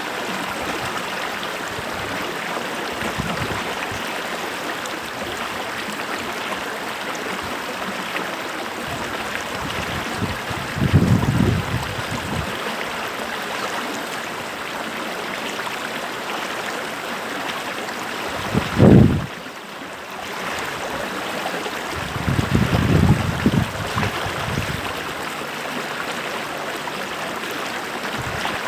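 Stream water running steadily, with three short low rumbles breaking in about a third of the way through, two-thirds through and a little later.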